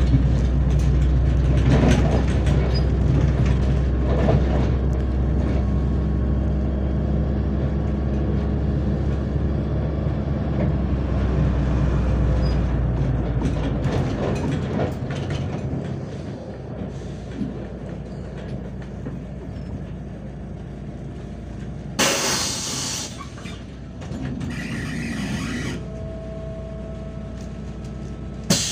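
Interior of a MAZ-105 articulated city bus under way: the diesel engine drones strongly with drive and road rumble, then eases off about halfway through as the bus slows. About 22 s in comes a loud hiss of compressed air from the bus's pneumatics, with a shorter hiss a few seconds later and a sharp one near the end.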